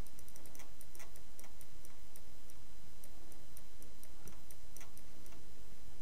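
Faint sharp clicks, a few a second, over a steady background hiss and hum from the recording microphone.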